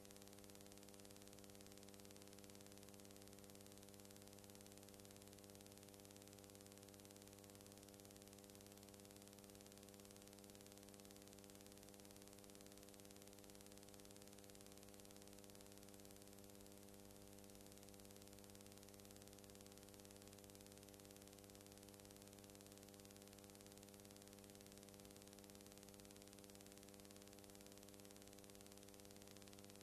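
Near silence: a faint, steady electrical hum with hiss, unchanging throughout, and no sound from the trains.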